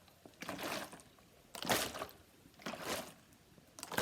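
Drink sloshing and splashing inside a drink bottle as it is shaken back and forth, about one slosh a second.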